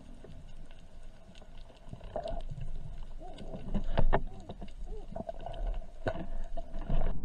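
Underwater sound picked up by a camera in its waterproof housing: a steady low water rumble with scattered sharp clicks and knocks, the loudest about four and six seconds in.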